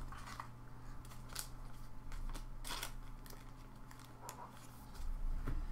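Paper trading cards handled in gloved hands: a few short, faint scrapes and flicks of card stock as cards are slid off a stack, over a steady low hum.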